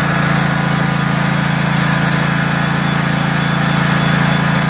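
Engine of a portable bandsaw sawmill running at a steady speed, a constant hum that does not rise or fall.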